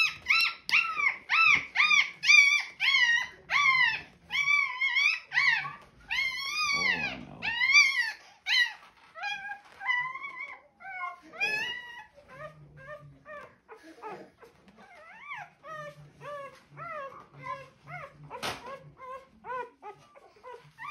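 A four-day-old German Shorthaired Pointer puppy crying in distress while held for tail docking and dewclaw removal: rapid, high-pitched squealing cries that rise and fall, about two a second, loud at first and then quieter and lower-pitched after about nine seconds.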